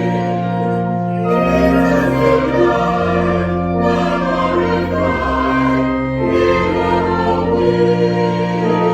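Choir singing a slow sacred piece with instrumental accompaniment, in long held chords whose bass notes move every second or so.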